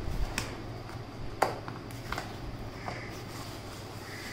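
Cardboard shipping box being opened by hand: a cutter blade slitting the packing tape and the flaps being pried and folded open, giving a few sharp cardboard snaps and crackles, the loudest about a second and a half in.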